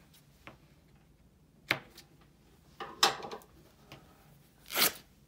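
Paper and fabric scraps being handled on a craft table: a sharp click about a second and a half in, then two short rustles, the second near the end.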